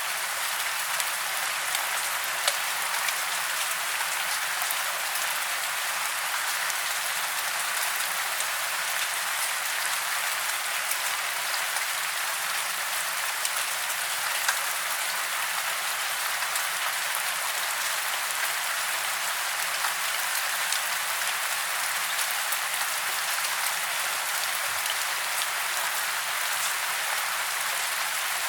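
Steady rain hiss with scattered sharp drop ticks, bright and thin with almost no low rumble.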